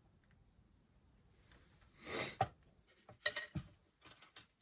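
A short breath, then a sharp click and a soft knock of pliers and a small screw being worked on the monitor's metal frame, followed by a few faint light clicks.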